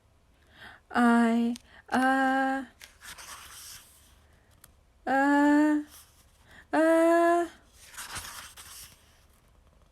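A voice acting out the build-up to a sneeze: four drawn-out 'ah' sounds, each held on one pitch and a little higher than the last, with breaths drawn in between.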